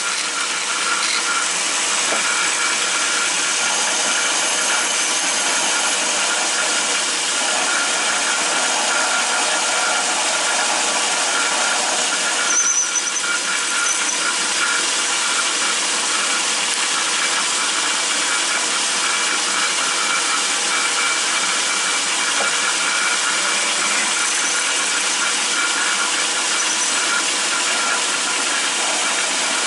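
Atlas 10-inch metal lathe running while a 17/64 drill bit fed from the tailstock bores into a steel backhoe pin, giving a steady high squeal over a hiss. The cut is running hot enough to smoke, so it needs more cutting oil. There is a brief louder clatter about halfway through.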